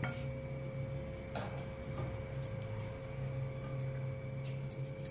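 A steady low hum with a faint steady tone under it, and a few faint ticks and light crackles from a stuffed flatbread dry-roasting on a non-stick tava over a low gas flame.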